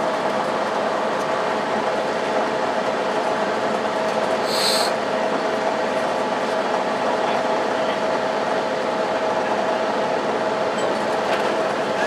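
Cabin noise inside a 2002 Blue Bird CS transit bus running on its Cummins ISL9 diesel and Allison B400R automatic transmission: a steady drone with a constant whine. A brief high squeal about four and a half seconds in.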